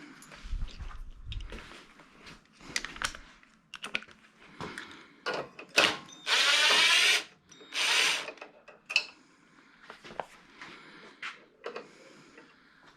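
A handheld power tool, such as a cordless ratchet or driver, runs in two short bursts: about a second, then about half a second, a little over a second in between. These are typical of spinning off a 10 mm nut on the engine's governor linkage. Light clinks and clicks of metal tools and parts come before and after.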